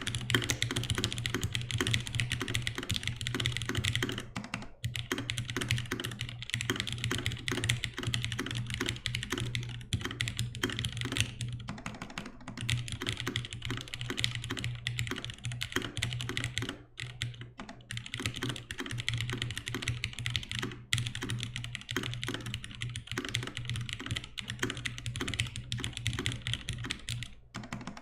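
Steady, fast typing on a GSKT-00 gasket-mount mechanical keyboard with retooled 60g Cherry MX Black linear switches lubed with Krytox, in an aluminum case with an aluminum half plate, with NCR dye-sub keycaps. The keystrokes run as a dense patter with a few short pauses.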